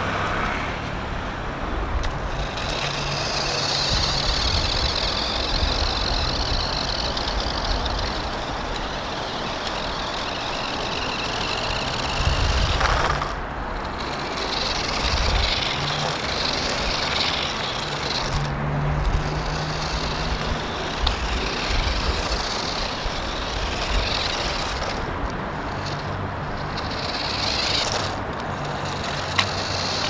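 Electric motor and gears of a small 1:18 SZJJX 2WD RC truck whining as it is driven around, cutting out briefly a few times as the throttle is let off, over a steady low rumble.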